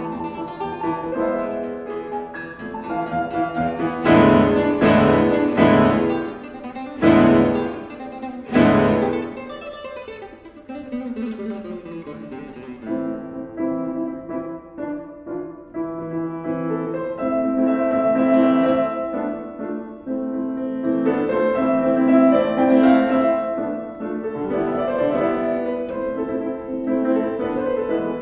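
Paulino Bernabé classical guitar and a piano playing concerto music together, the piano standing in for the orchestra. A run of loud struck chords comes about four to nine seconds in, then the music goes on more softly.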